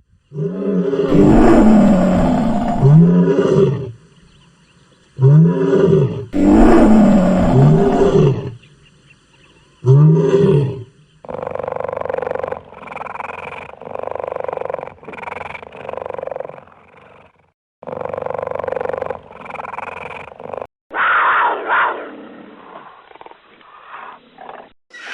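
A big cat roaring: several long, loud roars in the first ten seconds or so. These are followed by a quieter run of short, rhythmic calls from a different animal.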